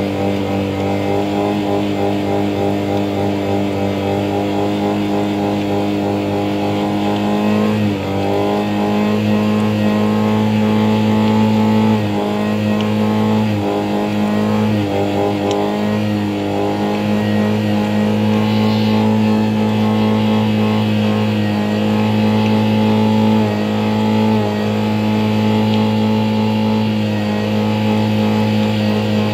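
Car engine held at high revs by the accelerator pedal, a steady drone that dips briefly in pitch and climbs back, first about eight seconds in and then several more times. The uploader describes the sound as two cylinders working.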